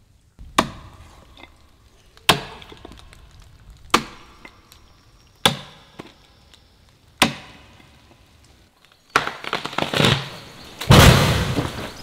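Five sharp knocks, one every second and a half or so, each dying away quickly, followed by a rough, noisy rushing sound that swells to a loud burst near the end.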